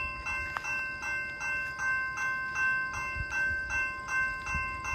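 Railway crossing warning bell ringing steadily at about three strikes a second, signalling an approaching train.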